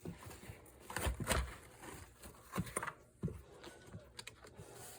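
Scattered clicks, taps and light rustles of items and packaging being handled in an unboxing, the loudest knocks about a second in and again around the middle.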